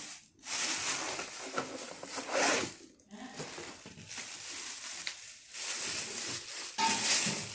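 Packaging being torn open and crinkled, in three long stretches of ripping and rustling with short pauses between them.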